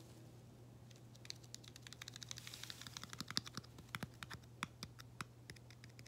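Fingertips tapping and lightly scratching right at the microphone in quick, irregular clicks, several a second, starting about a second in.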